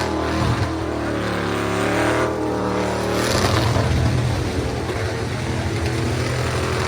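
Car engine revving hard, its pitch sliding up and down, with a deeper rumble joining about three seconds in.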